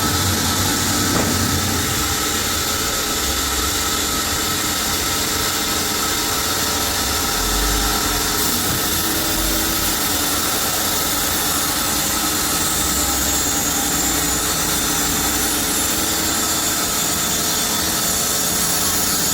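Sawmill machinery running steadily: an even, unbroken hiss with a few faint held tones, and no cut starting or stopping.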